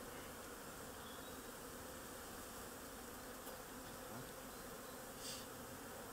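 Honeybee colony buzzing steadily on the combs of an opened hive, a low even hum.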